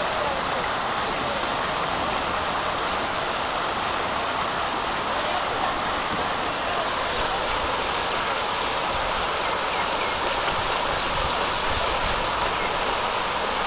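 Pond fountain spraying water that falls back onto the pond surface, a steady splashing hiss.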